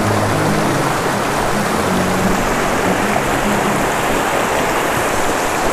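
Rushing water of a shallow mountain stream running over rocks and small rapids: a loud, steady rush with no breaks.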